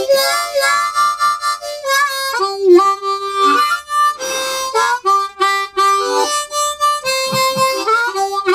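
Diatonic blues harmonica playing a short blues phrase of held notes and quick runs, several notes bent down and back up in pitch. It is cupped in both hands, giving a rough tone.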